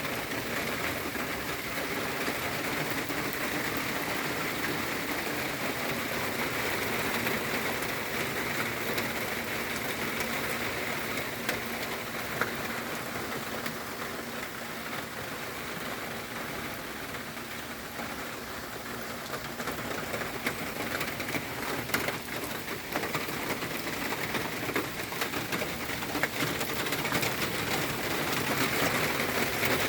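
Heavy rain pouring down steadily, a dense hiss of drops spattering on surfaces, swelling slightly louder near the end.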